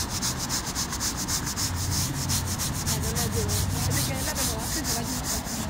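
Flat mop scrubbing wet paving tiles, a rubbing sound in a quick, even rhythm of back-and-forth strokes.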